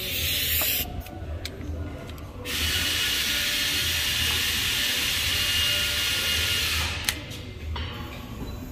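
Compressed air hissing from a pneumatic brake caliper piston wind-back tool. A short hiss comes at the start, then a steady hiss lasts about four seconds and stops.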